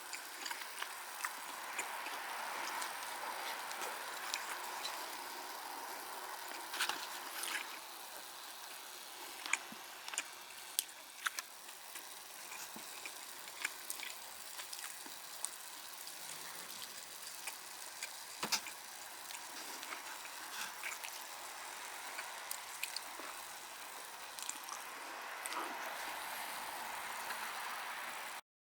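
Wood campfire crackling: a steady hiss with scattered sharp pops and snaps, cutting off suddenly near the end.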